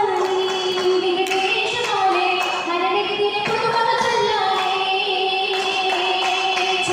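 A group of girls singing an Oppana song, a Mappila song, with one melody line carried in long held notes that glide from pitch to pitch without pause.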